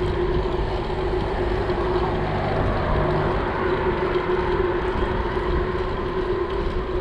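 Wind and road noise from riding a bicycle, picked up through a foam wind muffler on a handlebar-mounted GoPro Hero 7 Black: a steady rush with a low rumble and a constant hum, the wind noise damped by the foam.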